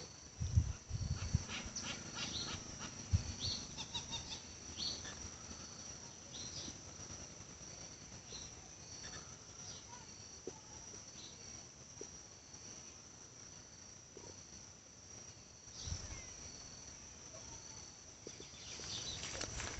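Insects chirping steadily in a continuous high-pitched trill, with scattered short bird chirps over it. A few brief low thumps in the first few seconds and again around 16 seconds in.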